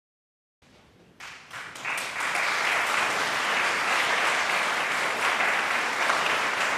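Audience applauding as a performer walks onto the stage. The clapping swells in about a second in, then holds as steady, dense applause.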